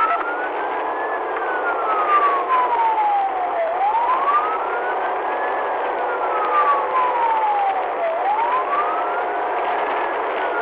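Police siren in a slow wail, climbing for about two seconds and sinking for about two and a half, three cycles over a steady rush of road and engine noise from a car at highway speed.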